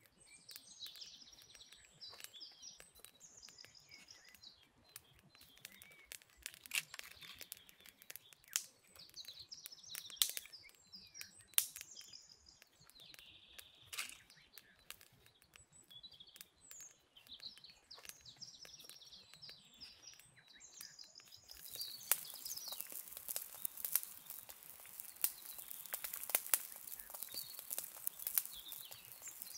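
Small birds chirping over the crackle of a wood fire. About 22 seconds in, a steady hiss with denser crackling sets in as the pot of berries bubbles over the fire.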